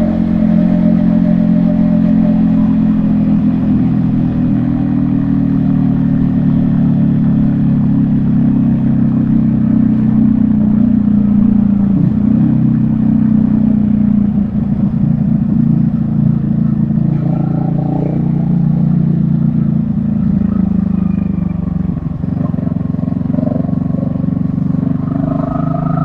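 Yamaha XSR155's single-cylinder four-stroke engine running under way, with the engine note dropping briefly about halfway through and again near the end.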